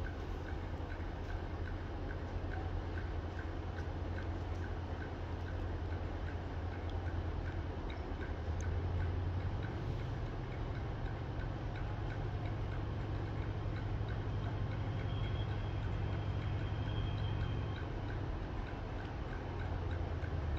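Diesel locomotives idling: a steady low hum with a regular light ticking on top. A faint high whine sounds for a few seconds past the middle.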